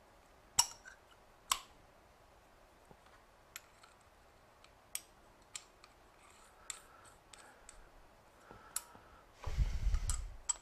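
Metal clicks and clinks as a 5C collet, a hex collet block and a piece of steel bar stock are handled and fitted together by hand. The two loudest clicks come within the first two seconds, lighter taps follow, and a short rough rumbling scrape comes near the end.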